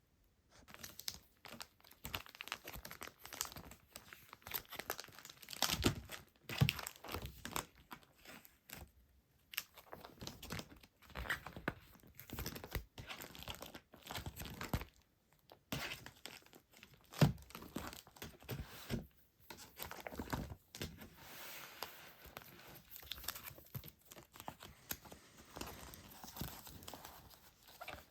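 Packaging handled at close range: dense, irregular crinkling and tearing rustles with short pauses and occasional light knocks.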